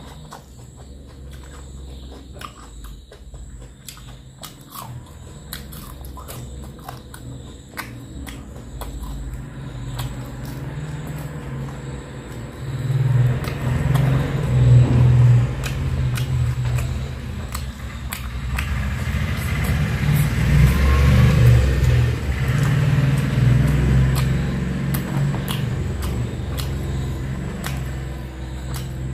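Close-miked eating by hand: wet chewing and mouth sounds of a man eating fish curry with rice, with fingers squishing and mixing rice on a tray. Many small clicks run throughout, over a low rumble that grows louder from about the middle and eases off near the end.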